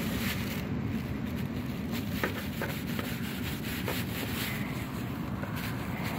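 Steady low rumble of wind on the microphone, with faint rubbing and a few soft clicks as a knife saws through a mackerel resting on a plastic bag.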